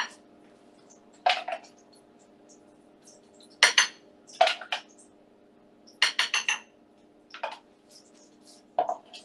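Crockery and cutlery clinking as food is plated: about half a dozen short clinks and knocks, with a quick run of several about six seconds in, over a faint steady hum.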